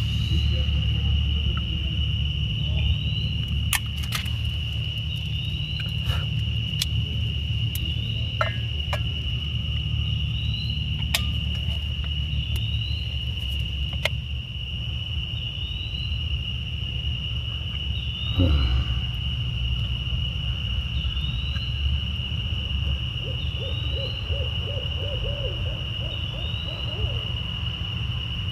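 Night insects keep up a steady high-pitched trill, with a short rising chirp repeating about every second and a half, over a low steady rumble. Near the end an owl gives a quick trill of low hoots.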